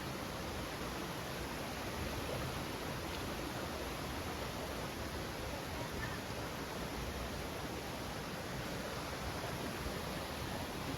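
Steady rushing of a waterfall's falling water, an even unbroken noise.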